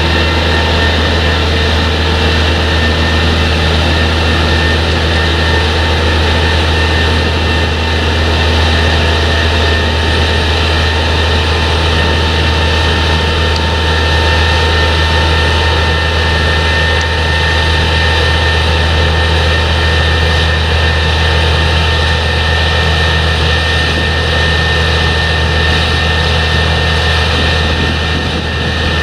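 Heavy diesel machinery of a potato harvest running steadily: a constant low engine drone with several steady higher tones from the machinery above it.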